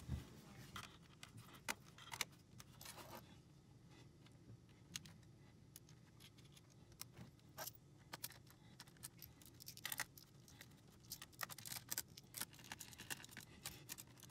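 Faint, scattered clicks and light scraping from hands and a small tool working a laptop cooling fan's cable and wires back into place, with more clicks near the end.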